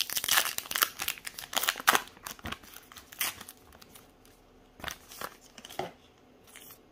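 Baseball card pack wrapper being torn open and crinkled for about two seconds, followed by a few soft rustles and taps as the cards are pulled out and handled.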